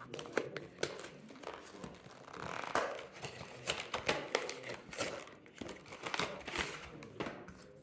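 Packaging of Yu-Gi-Oh trading card products being torn open by hand: a run of irregular crinkling and tearing crackles with scattered clicks.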